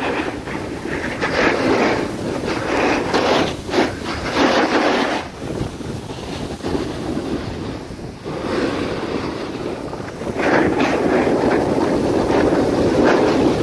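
Wind rushing over the microphone together with skis scraping over packed snow on a downhill run. It gets louder from about one to five seconds in and again from about ten seconds in.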